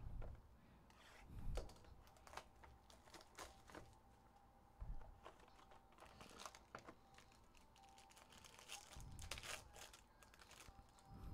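Faint crinkling and tearing of a foil trading-card pack wrapper as a hobby box is opened and its pack pulled out, with a few soft thumps from the cardboard box being handled on the table.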